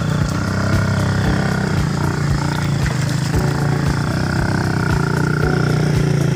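Motorcycle engine running steadily, with regular low thumps.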